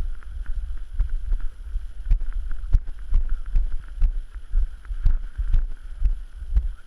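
Low wind rumble on the microphone, with irregular knocks about twice a second.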